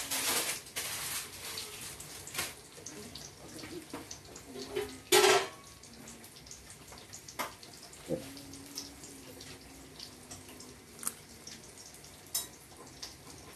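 Ripe avocado skin being peeled off the flesh by hand: soft tearing and scraping with scattered small clicks, and one louder brief rush of noise about five seconds in.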